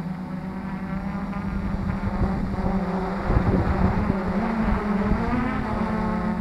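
Multirotor drone's motors and propellers running with a steady hum, heard through the camera slung beneath it; the pitch rises briefly about five seconds in. Gusts of wind noise rumble on the microphone around the middle.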